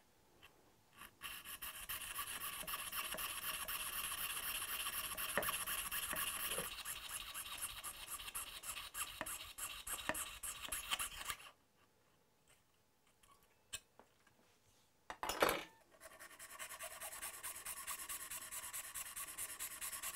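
Jeweller's saw cutting through a thin mother-of-pearl piece in quick, steady rasping strokes. About halfway the strokes stop for a few seconds, there is one sharp knock, and then the rasping strokes start again.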